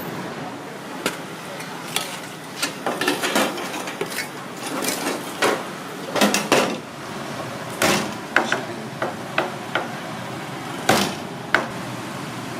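Metal cooking utensil clanking and scraping against a metal pan in irregular strokes, over a steady background hiss.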